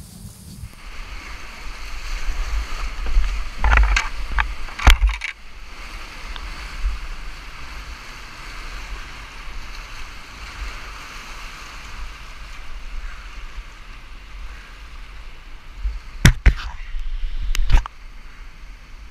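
Rushing whitewater of a river in flood, heard close up from a kayak running rapids, over a steady low rumble. Sharp thumps and splashes come about four to five seconds in and again near the end.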